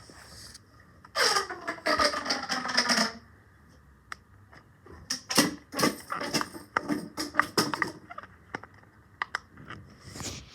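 Pop-it fidget toys being handled: a brief rustle, then a quick irregular run of small sharp clicks about halfway through.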